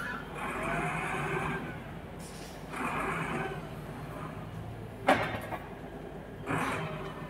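Wheel loader's diesel engine running, surging louder a few times as the fork attachment is raised and brought down on a tire, with one sharp metallic clunk about five seconds in.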